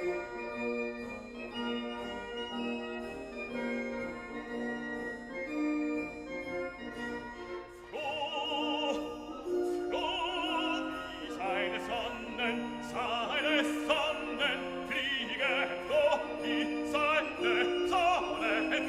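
Background classical music. A keyboard-like instrumental passage plays, then about eight seconds in an operatic singer comes in with strong vibrato.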